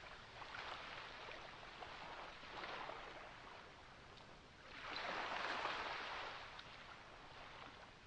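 Small waves washing in on a beach, each swelling into a hiss and falling away, the largest about five seconds in.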